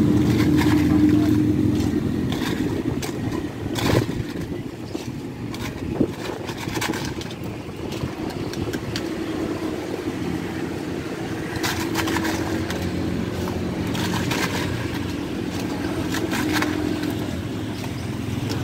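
Motor traffic running steadily. Over it come scattered short clinks and knocks of a plastic scoop digging into ice cubes in a cooler and tipping them into a plastic cup.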